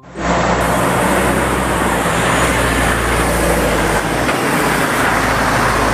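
Heavy car-transporter truck driving past on a road, its engine running steadily under loud tyre and road noise.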